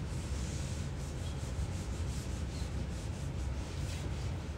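Whiteboard eraser rubbing across a whiteboard, wiping off marker writing with a steady rubbing hiss, over a steady low hum.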